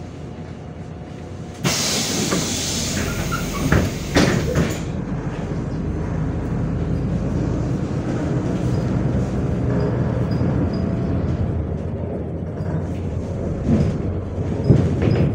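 MAZ 105.465 city bus's pneumatic doors working, with a sudden loud hiss of air lasting about three seconds and two thumps. The bus's engine and running noise rise with the hiss and then run steadily, with a few knocks near the end.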